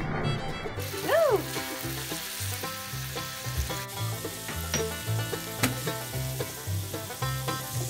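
Breakfast sausage sizzling in its fat in a cast-iron skillet while a fork chops and scrapes it apart, with scattered sharp clicks of the fork against the pan.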